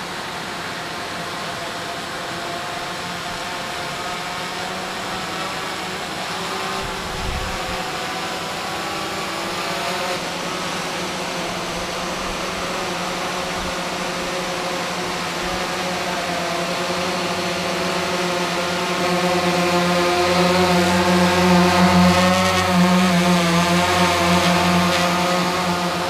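DJI Phantom 3 Professional quadcopter's propellers buzzing steadily in flight, the pitch wavering slightly. The buzz grows louder about two-thirds of the way in as the drone comes close, with the hiss of rushing water underneath.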